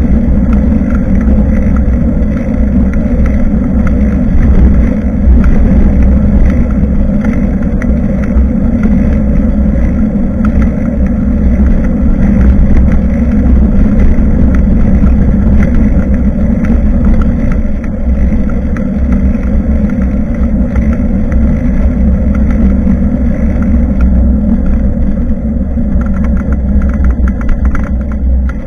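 Loud, steady rumble of wind and road noise on a bicycle-mounted action camera's microphone while riding, easing a little near the end.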